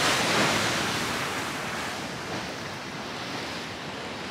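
Sea waves surging into a narrow rock inlet, the rush of water fading over the first second or so and settling into steady surf.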